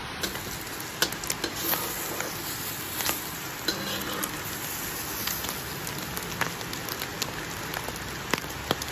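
An egg frying in hot oil in a pan: a steady sizzle with frequent sharp pops and crackles of spattering oil.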